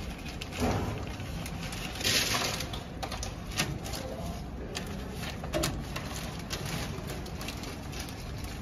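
Plastic packing film rustling and crinkling in short bursts as it is pulled and pressed over the stainless steel forming collar of a vertical packing machine, over a steady low hum.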